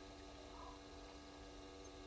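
Near silence: a faint steady electrical hum over a low rumble.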